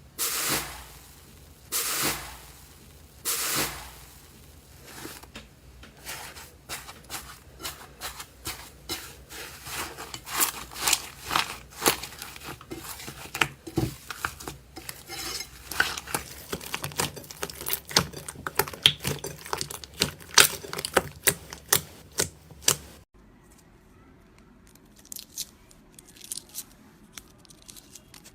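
Slime being pressed and stretched by hand, making a run of small, rapid crackling pops after three longer squishy swishes at the start. About 23 seconds in it switches abruptly to quieter, sparser crackles.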